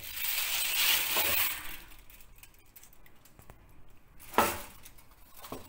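Aluminium foil crinkling as it is handled in a roasting tray, then one sharp clink about four and a half seconds in.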